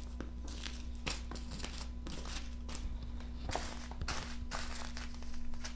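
Small plastic zip bags of diamond-painting drills crinkling and rustling as they are picked through by hand, in several short rustles, over a faint steady hum.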